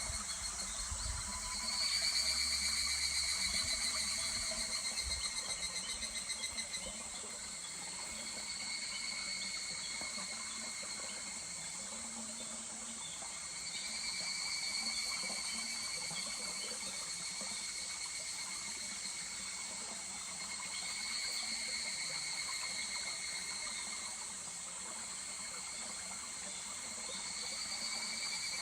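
Higurashi cicadas (evening cicadas) calling in overlapping rounds of rapid pulsed trills that swell and fade every several seconds, over the steady murmur of a stream.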